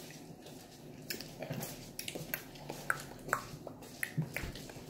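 Close chewing of a fruit-flavoured gummy vitamin: a run of short, irregular wet mouth clicks.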